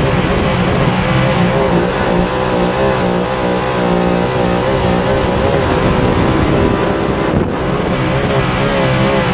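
Dirt late model race car's V8 engine at speed on a lap of a dirt oval, heard from inside the cockpit. Its pitch rises and falls as the throttle is worked through the corners, with a brief lift about seven and a half seconds in.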